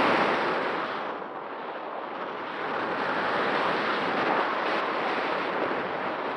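Air rushing over the onboard camera of an ASW-28 RC glider in flight: a steady wind hiss that eases over the first second or so after heavier buffeting.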